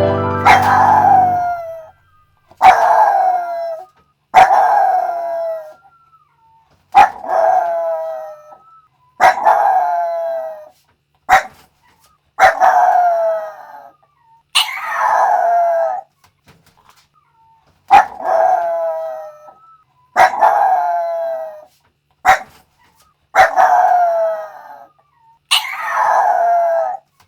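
Yorkshire Terrier howling in a series of about a dozen separate short howls, each a second or two long, starting sharply and sliding down in pitch, with short silences between them.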